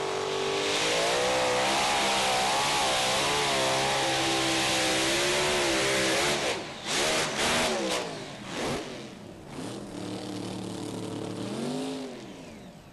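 Modified pulling tractor's multiple supercharged engines running flat out under load, then about six and a half seconds in the engines tear loose from the chassis and the sound breaks up into ragged cutouts and sudden bursts. An engine keeps running after that and winds down with a falling pitch near the end.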